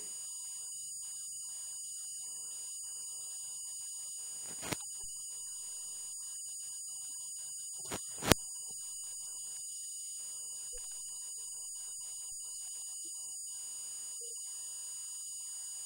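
Steady, high-pitched electronic whine made of several pure tones held at one level, with a sharp click about five seconds in and a louder one about eight seconds in.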